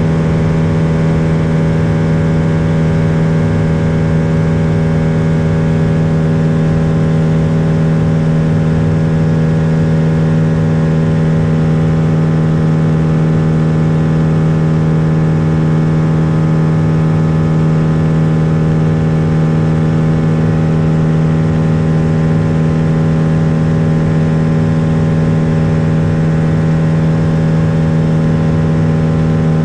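Lake Buccaneer LA-4-200 amphibian's four-cylinder Lycoming IO-360 engine and pusher propeller running at a steady cruise power in flight, a loud, even drone with a strong low hum.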